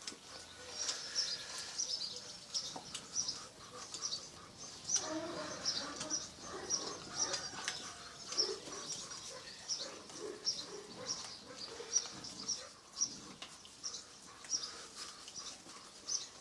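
A small bird chirping over and over, short high chirps about once or twice a second, with softer, lower puppy noises mixed in around the middle.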